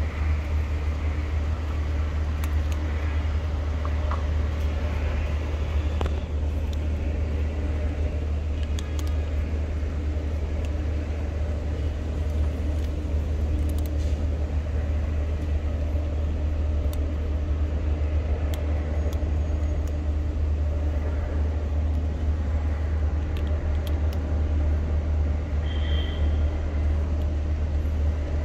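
Steady low rumble of motor traffic, with faint scattered crunches of cats chewing dry kibble over it.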